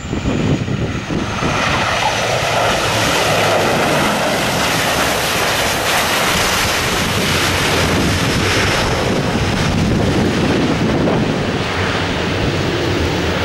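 Bombardier Dash 8 Q400 turboprop rolling out on the runway after touchdown, its two Pratt & Whitney PW150A engines and propellers making a loud, steady rush that swells about a second in. Strong gusting wind buffets the microphone.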